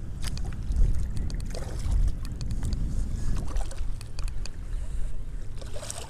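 Wind buffeting the microphone and choppy water slapping a small skiff's hull: a steady low rumble with scattered light clicks and knocks.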